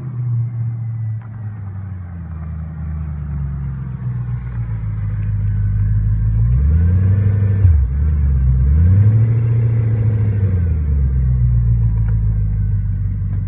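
Audi A8 D2 3.7 V8 running with no exhaust fitted, a loud, open engine note. Twice in the middle the pitch rises and falls again, loudest at those moments, before settling back to a steady note.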